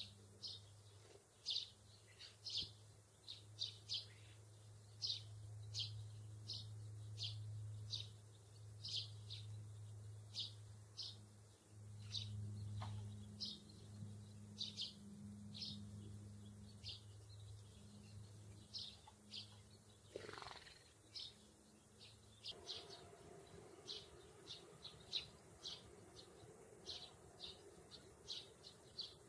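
Small songbird chirping over and over in short high chirps, about one or two a second, with a faint low hum beneath that stops about three-quarters of the way through.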